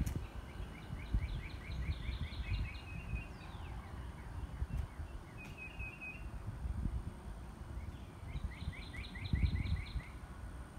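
Songbirds singing in quick trills of short chirps, three times, over a low, uneven outdoor rumble.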